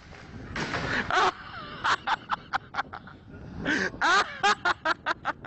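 Someone laughing hard in runs of short, quick bursts, about four a second, twice, with a breathy burst before them.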